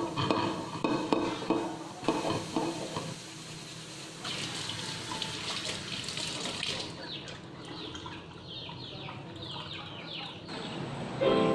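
Tap water running into and over a stainless steel frying pan as it is rinsed in a steel sink, with clatter of the pan against metal early on and a run of short squeaks of a hand rubbing the wet steel from about seven seconds in.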